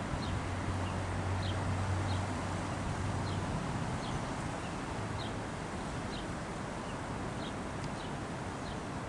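Class 175 diesel multiple unit moving away along the track: a low engine drone over a steady rumble, strongest for the first few seconds and then fading. A bird calls with short high chirps about once a second throughout.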